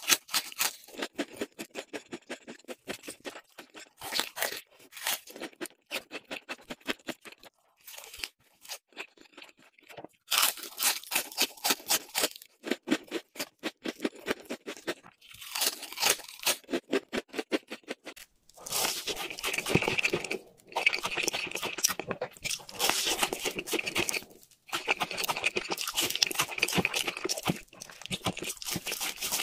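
Close-miked crunching bites and chewing of crisp, crumb-coated fried food, in quick rhythmic runs with short pauses. About two-thirds of the way through, the crunching becomes denser and more continuous.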